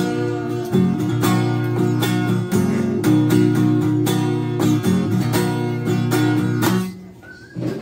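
Yamaha acoustic guitar strummed in a steady rhythm, without singing. The strumming stops abruptly near the end, when a string breaks.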